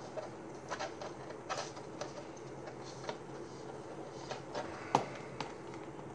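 Scattered light clicks and taps of large plastic model-kit parts being handled and pressed together, with one sharper knock about five seconds in, over a steady low hum.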